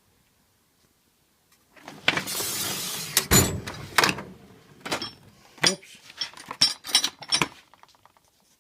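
A tool chest drawer sliding open, then about seven sharp metal clanks of hand tools being knocked and shifted in the drawer.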